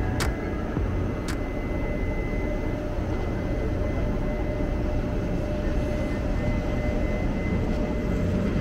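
Steady drone of a Taiwan Railway E400-class electric locomotive (E408), a low rumble with a thin steady whine over it. There are two short clicks in the first second or so.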